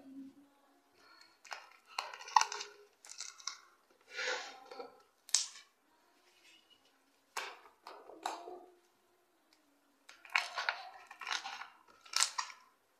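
Hands squishing and stretching a sticky homemade slime: irregular bursts of wet squelching and crackling, with a few sharp clicks.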